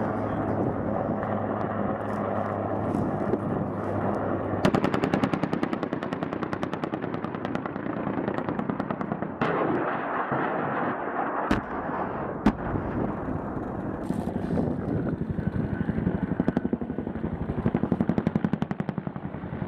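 Long bursts of rapid automatic gunfire beginning about four and a half seconds in and running on in rapid strings, with two sharper single cracks a little after the middle. Before the firing starts, a steady low hum.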